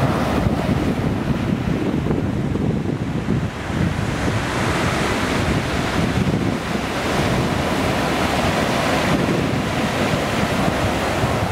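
Sea waves breaking and washing up a beach in steady surges, with wind buffeting the microphone and adding a low rumble.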